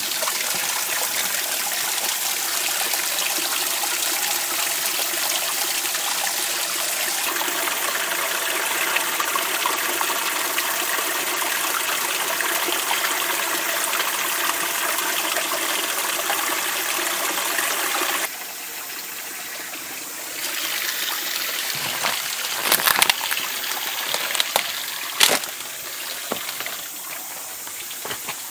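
Small forest stream running and splashing over rocks into a pool, a steady rushing sound. About 18 seconds in, it drops suddenly to a quieter background with a few sharp knocks and rustles.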